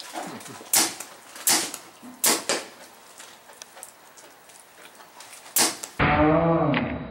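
A paintball marker firing: sharp pops, four in the first two and a half seconds, then one more after a pause. Near the end a different, loud pitched sound cuts in abruptly.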